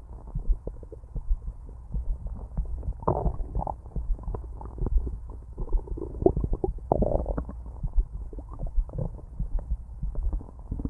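Loud stomach growling: irregular gurgles and bubbling squelches that come and go over a low rumble.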